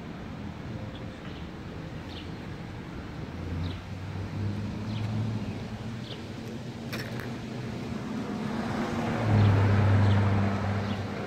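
A car passing on the road, building slowly and loudest about nine seconds in, then falling away.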